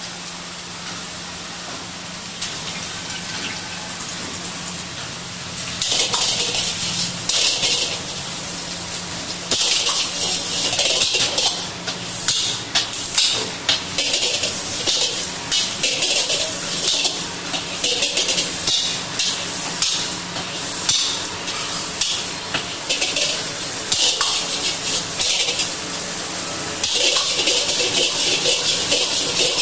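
Fried rice sizzling in a hot wok as it is stirred and tossed with a steel ladle. The sizzle is softer for the first few seconds, then flares into loud, uneven surges of hiss as the rice is worked and thrown.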